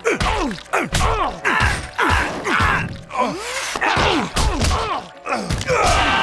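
Cartoon beat-down: a rapid string of punch and kick impacts, about two a second, each followed by a short pained grunt or groan that falls in pitch.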